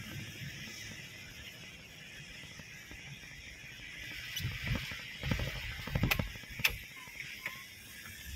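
Inside a car moving on rain-wet roads: a steady hiss, with a handful of sharp clicks and low knocks from the cabin around the middle.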